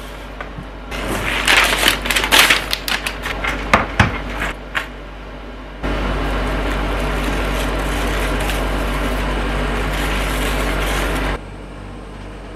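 Paper packaging crinkling and crackling as the protective wrap is peeled off a new MacBook Pro, with many sharp crackles and clicks for the first few seconds. This is followed by a steady hiss for about five seconds that cuts off abruptly.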